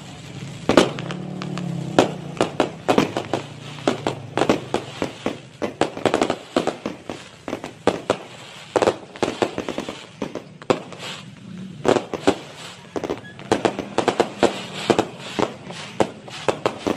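Aerial fireworks bursting overhead: a rapid, irregular string of sharp bangs and crackles, many coming close together.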